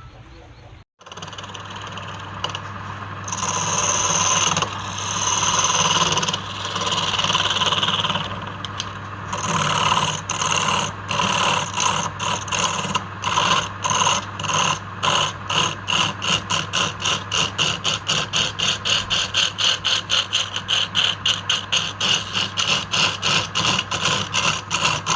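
Rhythmic back-and-forth scraping strokes on wood over a steady machine hum. The strokes start long and slow, then quicken to about three or four a second.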